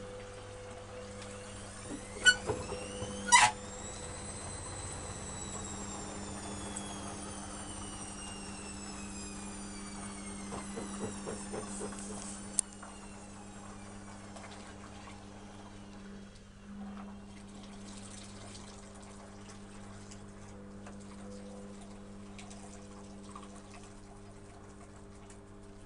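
Electrolux EWS 1045 washing machine: a few sharp clicks, then its motor whine rises briefly and falls slowly over about ten seconds as the drum winds down, over a steady low hum.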